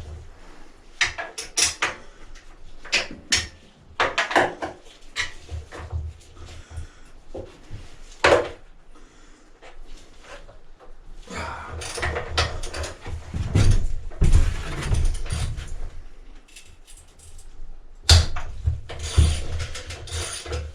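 Hand tools working on motorcycle exhaust mount bolts: irregular metallic clicks and knocks of a socket and wrench, with longer stretches of scraping and rubbing in the second half.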